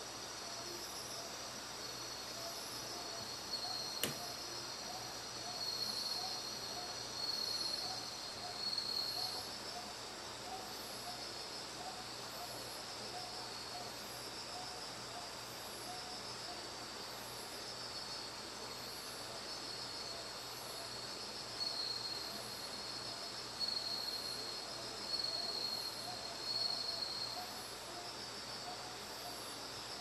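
Night chorus of autumn insects (crickets, bell crickets, pine crickets and Mecopoda katydids) in a steady high ringing trill that swells now and then. Below it a northern boobook hoots in an even rhythm, about one hoot a second. A single sharp click comes about four seconds in.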